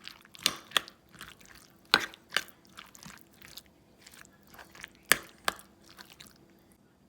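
A spoon stirring food, making irregular crunchy clicks and soft squelches. The loudest strokes come about two seconds in and again about five seconds in.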